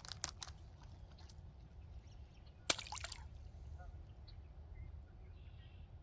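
A sudden splash in open water about two and a half seconds in, short and sharp with a brief splashing tail, after a few smaller splashy clicks at the start. Faint bird chirps follow later.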